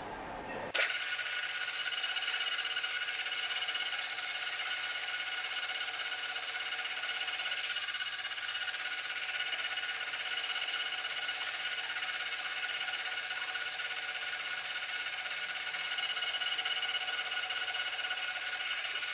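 Metal lathe running while a cutting tool turns a white fluoroplastic (PTFE) part, a steady whine with several high tones. It starts abruptly just under a second in.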